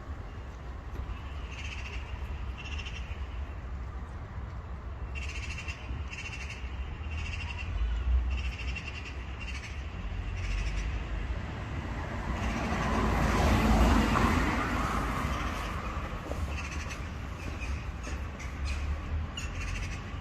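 A series of short, harsh animal calls repeated about once or twice a second, in two runs, with a swell of rushing noise that rises and fades about two-thirds of the way through over a steady low rumble.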